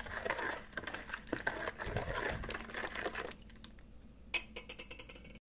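Metal spoon stirring sugar into milk and water in a ceramic bowl, scraping and clinking against the bowl for about three seconds. Then quieter, with a short crinkling rustle of the yeast sachet being handled near the end.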